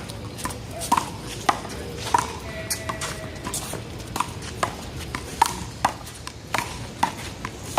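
One-wall handball rally: the rubber ball slapped by hands and smacking off the wall in a quick, irregular series of sharp claps, roughly two a second.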